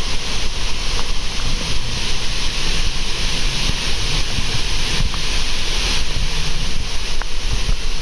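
Loud, steady rush of falling water from a waterfall, with wind gusting on the microphone in uneven low rumbles.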